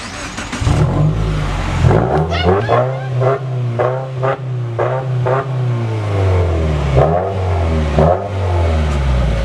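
Subaru WRX flat-four engine cranking and catching about half a second in, then idling fast through a Subispeed axle-back exhaust with the muffler deleted. The idle eases down a little near the end.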